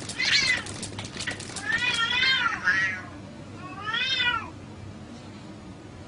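Two cats fighting: four yowls that rise and fall in pitch, with sharp clicks over the first two seconds. The yowling stops about four and a half seconds in.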